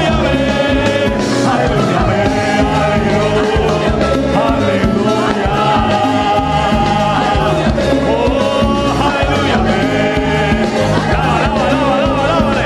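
Live Pentecostal worship chorus (coro): a band with a drum kit plays a steady upbeat rhythm while voices sing the melody.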